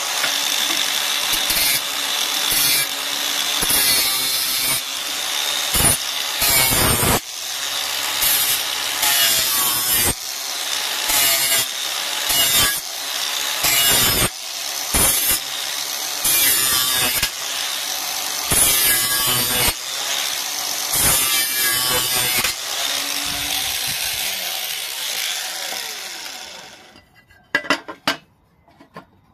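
Angle grinder with an abrasive disc grinding the edge of a sheet-metal plate, in repeated bursts as the disc bites and lifts off. Near the end the grinder is switched off and winds down, followed by a few light clicks of the plate being handled.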